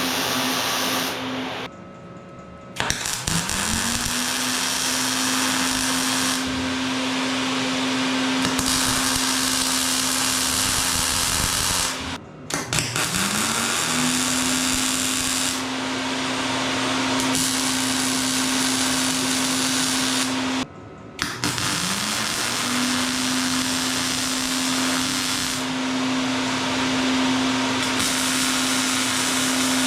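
Handheld electric power tool running in three long stretches, cutting out briefly twice and spinning up again each time with a rising whine that settles to a steady pitch, over a loud high hiss of the tool working.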